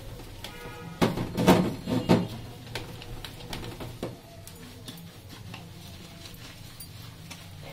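Dishes clinking and knocking against each other and the stainless-steel sink as they are scrubbed with a soapy sponge. A few loud knocks come in the first two seconds, then quieter scrubbing and light rattling.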